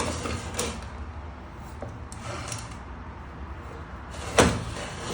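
WenHai 339 vertical key-cutting machine running with a steady low hum. Its carriage makes brief scraping sweeps at the start and about two seconds in. A sharp loud knock comes near the end.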